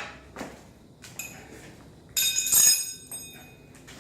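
Steel winding bars clinking against a garage door torsion spring's winding cone: a light clink about a second in, then a louder ringing metallic clatter a little after two seconds.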